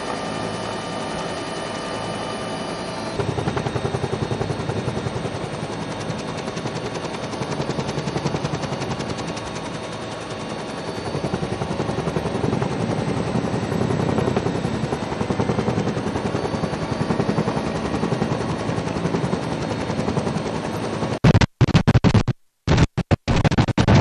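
Helicopter in flight heard from the cabin: a turbine whine over the rotor noise, then a louder, fast, even chopping rattle from about three seconds in that swells and fades slowly. Near the end the sound cuts in and out abruptly.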